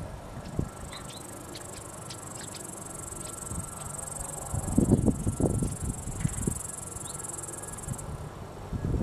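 Steady high-pitched insect trill, cricket-like, that cuts off suddenly about eight seconds in. About five seconds in, a burst of low rumbling on the microphone is the loudest sound.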